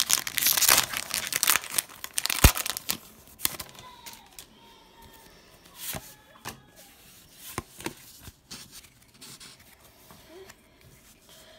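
A foil Pokémon booster pack wrapper being torn open, a crinkly ripping during the first few seconds with a sharp snap after about two and a half seconds. Then comes quieter rustling and tapping as the cards are handled.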